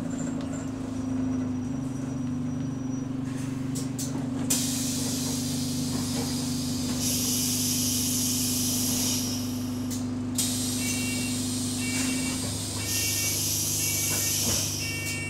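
Bus engine idling steadily while the air-operated rear doors hiss loudly twice. Repeated short two-tone door warning beeps sound during the second hiss.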